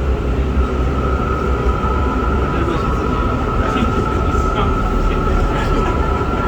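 MRT Putrajaya Line train standing at the platform: its onboard equipment gives a steady, unchanging high whine over a low rumble. The pitch does not rise or fall, so the train is not moving.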